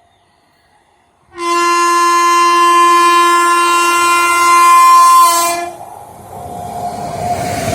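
Indian Railways WAP-7 electric locomotive's horn sounding one long, steady blast of about four seconds, starting a little over a second in and cutting off. A rising rush of noise follows near the end.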